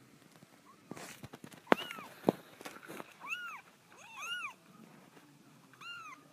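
Young Himalayan and Persian kittens mewing: about four short, high-pitched mews, each rising and falling in pitch, with a couple of sharp clicks about two seconds in.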